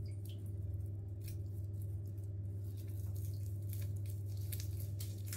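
Quiet bathroom sound with a steady low hum and a few faint, short clicks and small splashes of bath water in a filled tub.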